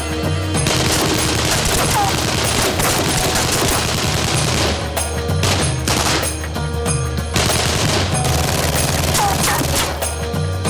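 Rapid bursts of submachine-gun fire in a gunfight, over a music score with steady low sustained notes.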